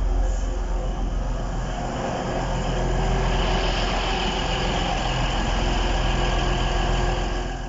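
Diesel train engines running steadily, a low hum under a hiss that grows louder about three seconds in, then drops away suddenly at the very end.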